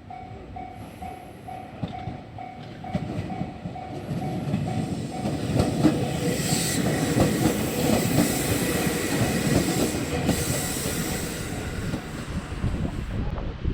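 Level-crossing warning bell ringing in a steady rapid beat, then an electric train on the Nara Line passes close by, its rumble and wheel noise loud from about five seconds in, with a hiss, and dropping away near the end.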